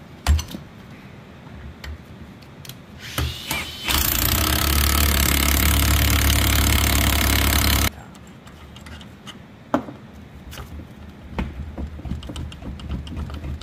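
A motor runs loudly and steadily for about four seconds, starting about four seconds in and cutting off suddenly. Before and after it come scattered sharp metallic clicks and knocks from a ratchet and a bush-puller tool working on a rusty suspension arm.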